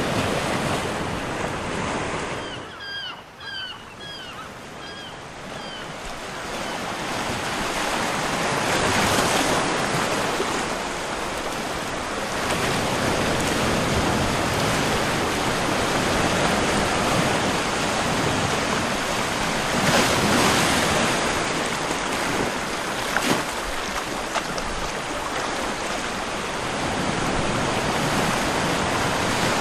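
Wind rushing over the microphone in gusts, dropping away briefly a few seconds in. In that lull something chirps a quick run of about six short notes, much like a small bird.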